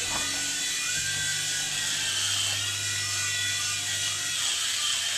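Small electric remote-control toy helicopter flying, its motor and rotor making a steady buzz.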